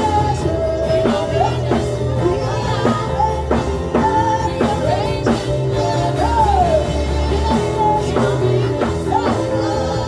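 Worship band music: a voice singing a melody over a drum kit keeping a steady beat and a sustained bass.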